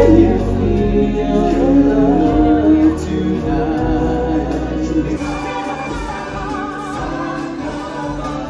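Live stage-show music: a group of singers in chorus over band accompaniment, loudest at the start and easing somewhat toward the end.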